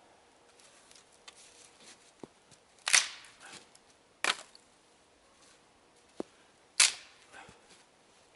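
Dry dead sticks being snapped by hand for firewood: three loud, sharp cracks, the first about three seconds in, the next a second later and the last near the seventh second, with fainter clicks and rustling in between.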